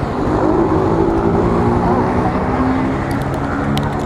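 Kawasaki ER-6n parallel-twin motorcycle engine running loud through a 2-into-1 straight pipe with no muffler, its note shifting slightly in pitch.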